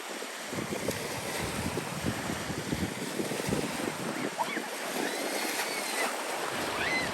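Sea surf and wind buffeting the microphone, with several short arched bird calls in the last few seconds.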